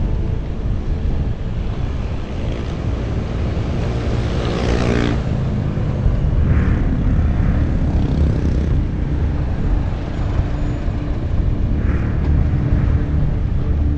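Wind and road rumble on a moving bicycle's action-camera microphone amid street traffic. About four to five seconds in, a passing engine rises in pitch and cuts away, and in the second half a steady engine hum from traffic ahead runs under the rumble.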